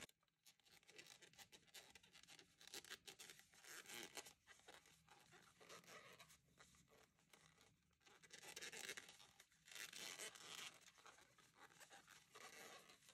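Faint scratchy rustling of T-shirt yarn being pulled through stitches with a crochet hook, in a few soft, irregular bursts over near silence.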